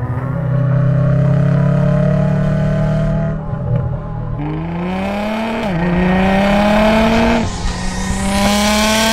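Sports car engines accelerating hard: a held note for about three seconds, then revs climbing, dropping sharply at a gear change a little past halfway, and climbing again twice more.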